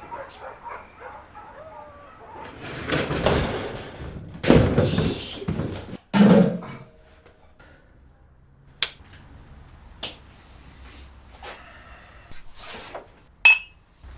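A shed's overhead door is pulled down with a rattle and slams shut about six seconds in. Later come a few single sharp typewriter keystrokes and a short bell ding near the end.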